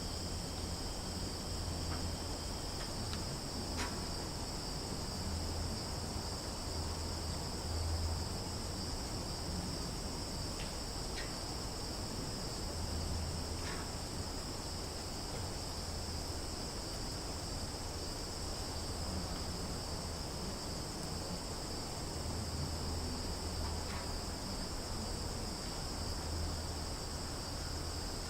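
Summer forest ambience: a dense chorus of insects trilling steadily in two high, unbroken bands, over a low rumble, with a few faint short chirps.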